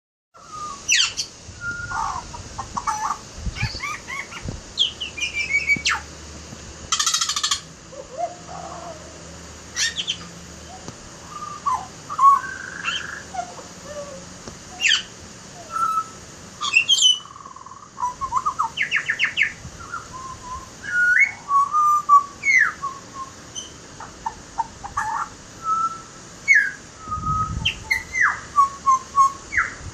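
Butcherbird singing a varied, mixed series of short whistled notes and pitch glides, broken by a harsh rasping call.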